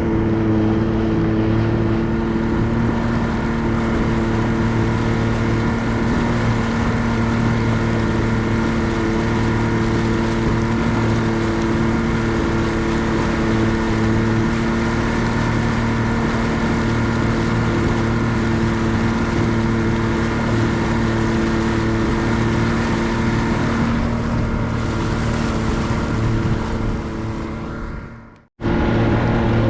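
Boat's outboard motor running steadily under way, with a steady engine hum. Near the end the sound fades and drops out for a moment, then comes back.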